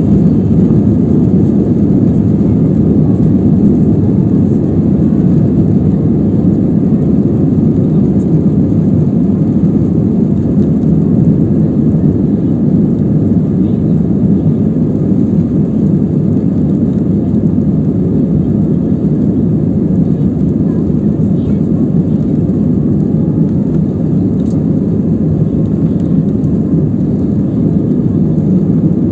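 Steady, loud cabin rumble of an Airbus A320 on its takeoff run, heard beside the wing: the jet engines at high thrust mixed with the wheels rolling on the runway.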